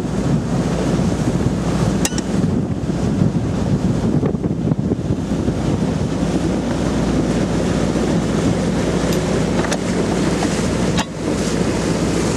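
Wind buffeting the microphone on a boat under way, over rushing water and a steady low engine drone, with a few light knocks.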